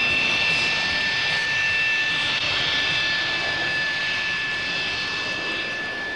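Jet engine running steadily: a high, even whine with a second, higher tone over a rushing noise, slowly getting quieter in the second half.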